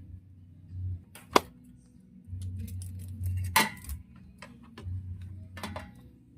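Sharp metallic clicks and clinks of tools and parts being handled while working on a motorcycle carburetor. The loudest is a single sharp click about a second and a half in. Two more bursts of clinking come later, with a low rumble in between.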